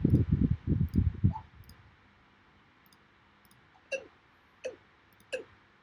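Recorded bird calls of the kind used as decoys: a fast run of low hooting pulses that stops about a second in, then, after a pause, three short, sharp downward-sweeping calls with a click at the start of each.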